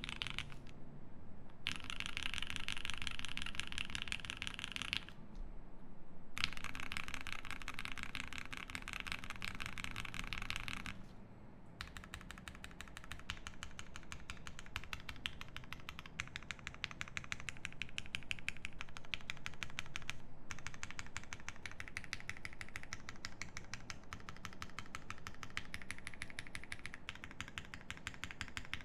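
Fast typing on a custom mechanical keyboard with lubed Cherry Hyperglide Black linear switches, a polypropylene plate, GMK keycaps and a tape mod. It makes a dense stream of keystrokes that stops for a second or so a few times.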